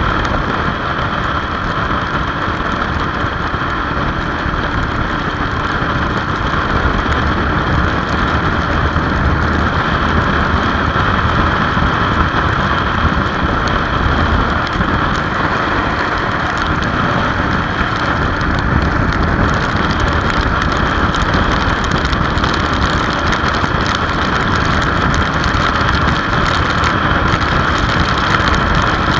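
Motorcycle cruising at road speed in the rain: a steady rush of wind and wet-road noise with the engine running underneath, unchanging throughout.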